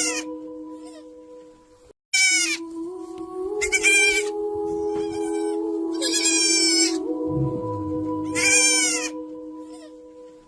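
Young goat kid bleating: a series of high-pitched, quavering calls a couple of seconds apart, over background music with steady held tones.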